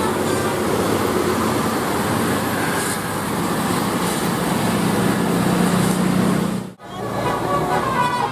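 Roadside traffic noise with a bus engine running, a steady dense din. The sound drops out abruptly for an instant about two-thirds of the way through.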